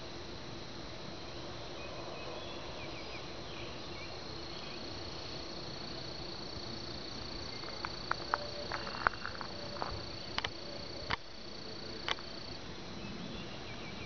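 Insects calling in one steady high-pitched tone that sets in about four seconds in and stops shortly before the end, over a faint steady hum. A cluster of short sharp clicks comes about two-thirds of the way through.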